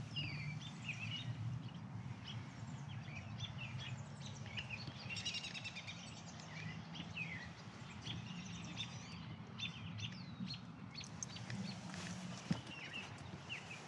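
Songbirds chirping and calling throughout, many short chirps and falling whistles with a quick trill about five seconds in, over a steady low background hum. One sharp tap near the end.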